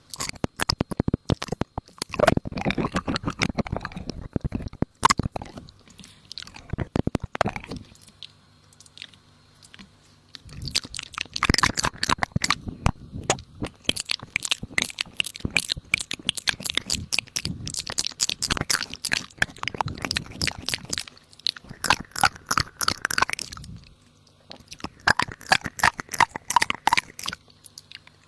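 Close, rapid crunching made of dense crisp clicks, in three long stretches: from the start to about seven seconds in, from about ten seconds to about twenty-four, and again for a few seconds near the end.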